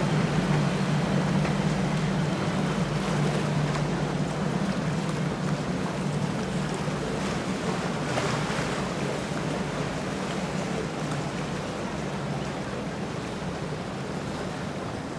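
Quintuple Mercury Racing 450R supercharged V8 outboards on a Midnight Express 43 Open running at low speed: a steady low engine drone over the wash of water. It fades gradually as the boat moves away.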